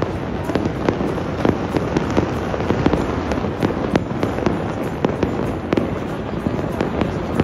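Citywide New Year fireworks and firecrackers going off all at once: a continuous rumble of distant bursts, with sharper bangs cracking through it two or three times a second.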